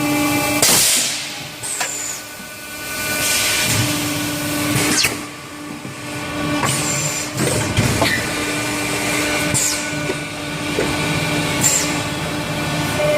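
Plastic bottle-making machinery running, an injection stretch blow moulding or hanger welding machine: a steady mechanical hum broken by short, sharp hisses every second or two.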